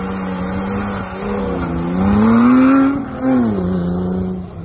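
Off-road trial buggy's engine running under throttle, revving up about two seconds in, at its loudest for about a second, then dropping back to a steady lower pitch.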